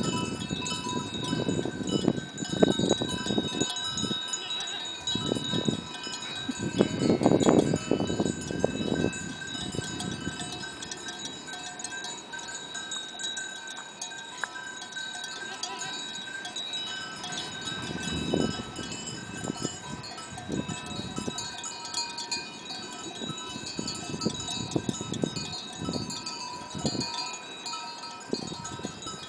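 Bells on a herd of goats ringing together at several pitches at once. Gusts of wind buffet the microphone, strongest in the first ten seconds.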